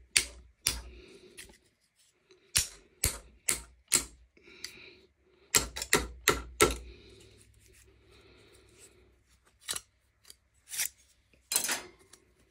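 Sharp metal-on-metal taps with a short ring, in quick clusters of three or four and a few lighter ones near the end: a thin blade is being hammered into the seam of a laminated chainsaw bar held in a steel bench vise, splitting the bar's thin steel layers apart.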